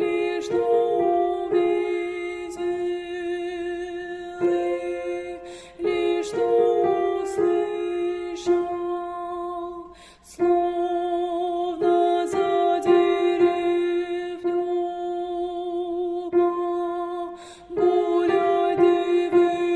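Slow instrumental melody over a steady held low note, played in phrases separated by short breaks.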